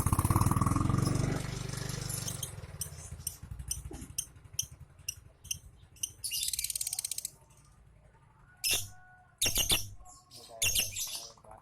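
Lutino lovebird chattering: a run of short, sharp chirps about two a second, a harsh buzzing chatter around the middle, then several loud shrill calls. A low rumble under the first couple of seconds fades away.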